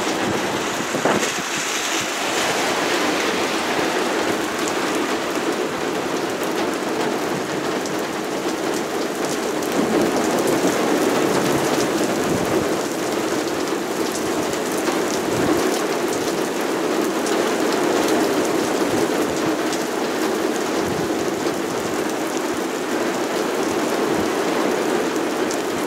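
Torrential rain in a thunderstorm downpour, heard from under a bus shelter: a dense, steady hiss of heavy rainfall full of small drop taps. It grows a little louder about ten seconds in.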